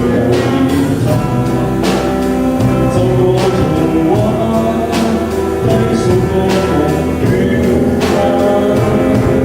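A band playing a song with singing, sustained chords and drum hits.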